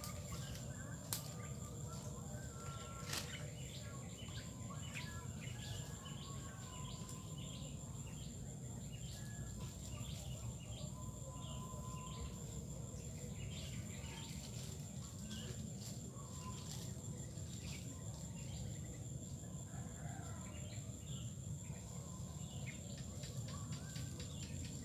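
Swamp-forest ambience: many small birds chirping in short calls, over a steady high-pitched insect drone and a low rumble. A few sharp clicks near the start.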